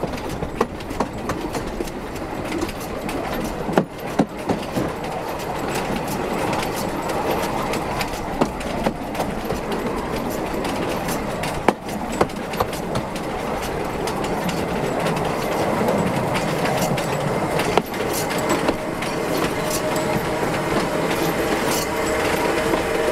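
Wheels of a steam-hauled museum train rolling slowly over the track, a steady rumble with scattered sharp clicks as they pass the rail joints. A steady whining tone comes in near the end as the train slows almost to a stop.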